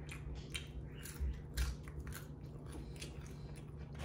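A person chewing curly fries close to the microphone: an irregular run of short crunches and wet mouth clicks.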